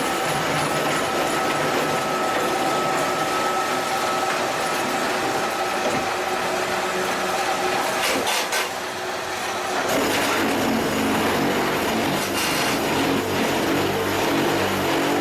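QTJ4-25 semi-automatic block machine running: steady mechanical noise with a constant whine, a brief clatter about eight seconds in, then a lower, heavier running sound from about ten seconds in.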